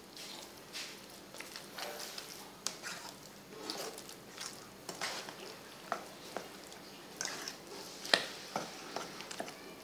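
Spoon stirring a wet mixture of minced pork and raw egg in a stainless steel bowl: wet squelching with irregular clicks of the spoon against the metal bowl, one louder click a little after eight seconds in.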